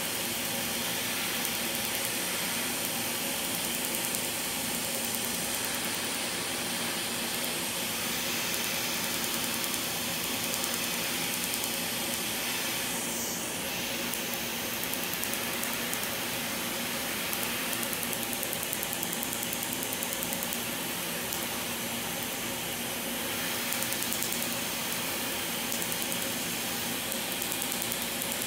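Tattoo-removal laser firing, its handpiece giving a rapid run of small snapping ticks on the skin over the laser unit's steady machine whir.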